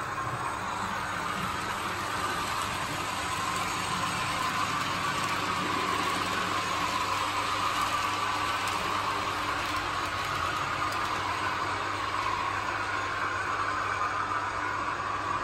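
OO gauge model trains running on the layout: a steady whirr and rumble of small locomotive motors and wheels on the track, with a constant low hum underneath.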